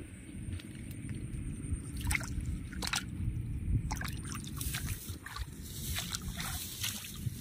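Shallow water sloshing and splashing as a fishing net is hauled through it by hand, with a few sharper splashes in the second half over a steady low rumble.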